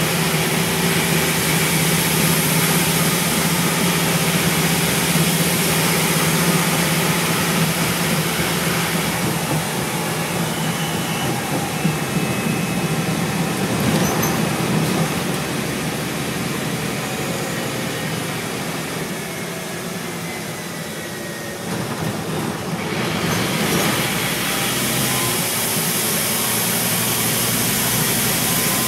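Scania N230UB single-deck bus heard from inside while under way: a steady diesel engine note under a broad hiss of tyre and road noise, with a couple of sharp rattles. The engine and road noise drop away for a few seconds about two-thirds of the way through, then pick up again.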